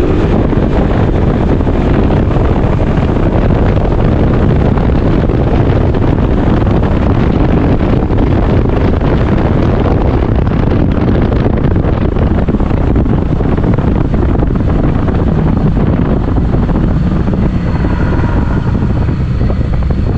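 Steady, loud roar of wind and vehicle noise echoing inside a road tunnel, without a break.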